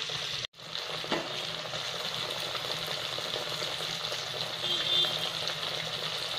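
Semolina-and-potato vadas deep-frying in hot oil in a kadhai: a steady bubbling sizzle. It drops out for an instant about half a second in, then carries on.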